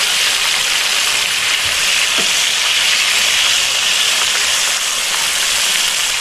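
Battered grouper pieces deep-frying in hot oil in a frying pan: a steady, loud sizzle, with the fish cooked through and ready to come out.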